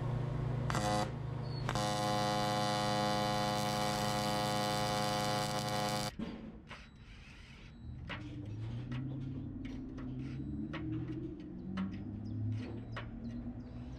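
TIG welding arc buzzing on an aluminium frame: a short burst just under a second in, then a steady hum from about two seconds that cuts off sharply about six seconds in. After that come quieter scattered clicks and taps.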